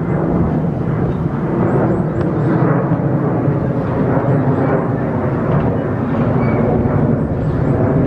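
Steady loud low noise of an outdoor walk, with footsteps on the path, and faint high bird chirps in quick runs of three or four about every two and a half seconds.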